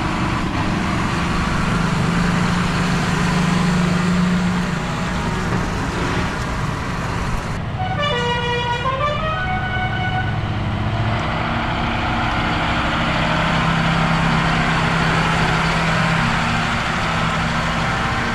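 Diesel engines of decorated John Deere tractors running as they drive past, a steady drone with a low hum that swells twice as a tractor comes close. About eight seconds in, a musical air horn plays a short run of notes that step down and then back up.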